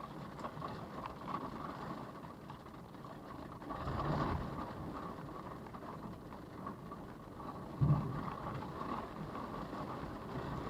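Storm wind rushing around a parked car, heard from inside through its dash camera, swelling about four seconds in, with one sudden thump about eight seconds in.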